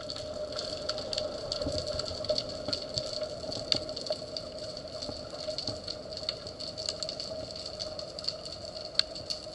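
Underwater ambience picked up by a camera in its waterproof housing: a steady hum with two held tones, scattered with irregular small clicks and crackles and a few sharper ticks.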